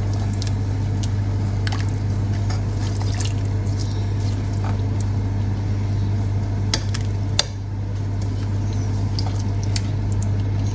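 A thick meat-and-potato curry being stirred in a pot with a silicone spatula: wet squishing and sloshing with scattered clicks of the spatula against the pot, two sharper knocks about seven seconds in, over a steady low hum.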